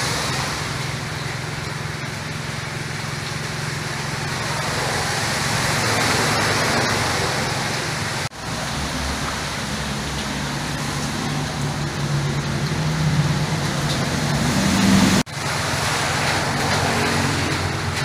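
Steady rushing noise of heavy rain and floodwater, with a low hum at times. It breaks off briefly twice.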